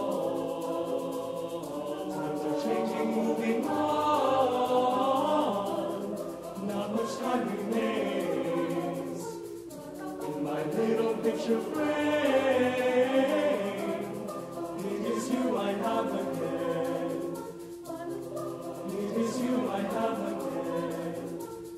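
Mixed chamber choir singing unaccompanied in many parts, in phrases of about four seconds, each swelling and then easing off.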